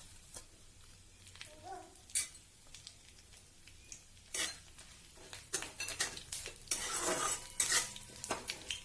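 A metal spoon or spatula clinking and scraping in a pan as whole spices are stirred in hot oil; the sizzling and stirring get busier and louder from about halfway in.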